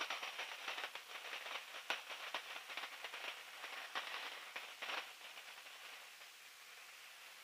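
Faint crackling hiss with many small scattered clicks, slowly fading lower. No engine note is heard.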